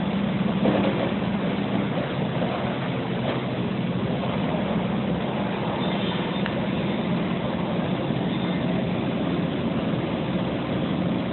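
Steady drone of heavy machinery running, with a constant low hum and no distinct knocks or changes.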